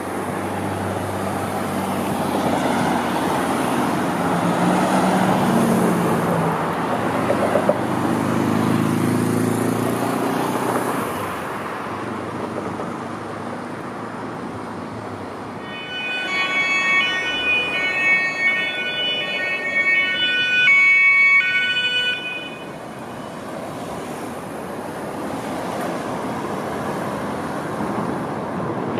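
Road traffic with a vehicle accelerating past, its engine note rising. About halfway through, a German police two-tone siren (Martinshorn) sounds for about six seconds, alternating between two notes, then cuts off, leaving city traffic noise.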